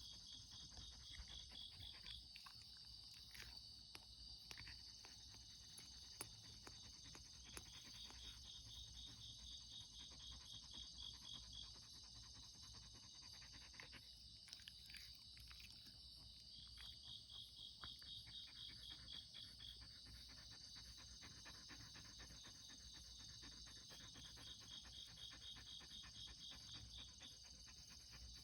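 Faint chorus of night insects: a steady high-pitched buzzing, with a rapid pulsed trill that comes in runs of a few seconds, about every six seconds, over a low hum.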